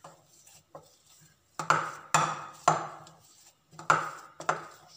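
Wire potato masher pressing boiled potatoes in a glass bowl and knocking against the glass: a few light taps, then five sharp clinks in the second half, each dying away quickly.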